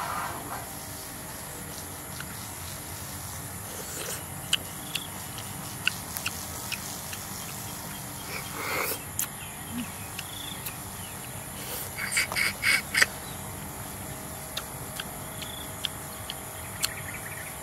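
A person eating cooked snails: she sucks one out of its shell with a short slurp about eight and a half seconds in, and a quick run of about five wet mouth clicks follows near twelve seconds. Scattered small clicks and a steady high insect drone run underneath.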